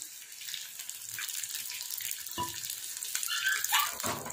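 Breaded chicken fingers deep-frying in hot oil, a steady sizzle. A metal slotted spoon knocks once about two and a half seconds in, then scrapes and clinks in the pan near the end.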